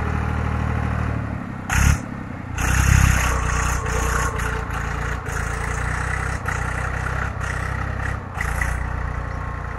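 Fiat 480 tractor's three-cylinder diesel engine working hard under load as it pulls through deep mud, running steadily with a surge in revs around three seconds in. A brief loud noise comes just before the surge, about two seconds in.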